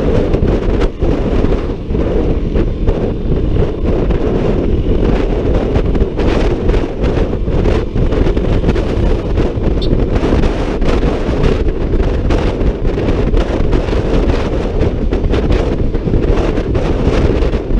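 Wind rushing and buffeting over the microphone of a Honda ADV 150 scooter riding at road speed, a steady low rush that doesn't let up.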